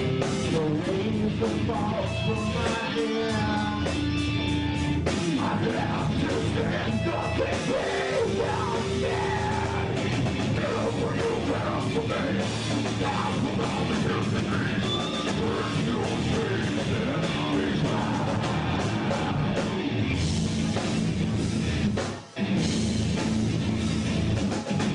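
Live heavy rock band playing loud guitar music with singing. The music cuts out for an instant near the end and comes straight back in.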